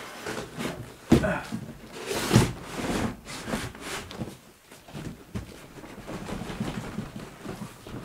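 A large cardboard PC-case box being turned over and set down: a sharp thump about a second in and another a little over two seconds in, then softer cardboard handling and scraping.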